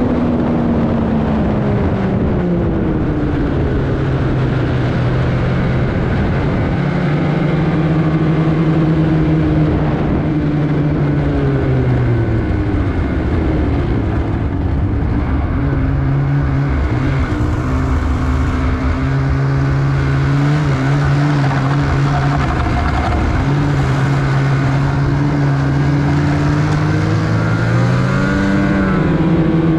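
Polaris Indy XC 850 snowmobile's 850 two-stroke twin engine running under way, its pitch falling and rising again several times as the throttle is eased off and opened back up, with a dip around the middle and another near the end.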